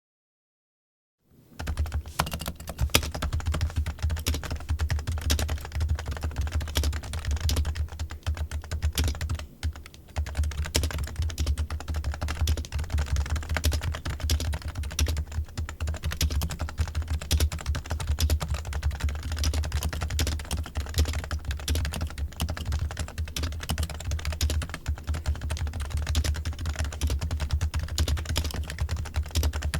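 Computer keyboard typing: rapid, continuous, irregular keystrokes starting about a second in, over a steady low hum.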